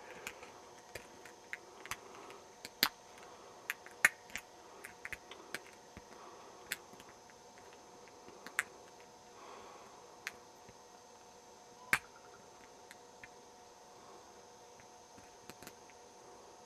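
Lock pick and tension tool working in a deadbolt's pin-tumbler lock: faint, irregular metallic clicks and ticks as the pins are picked one at a time, with a few louder clicks about three, four and twelve seconds in.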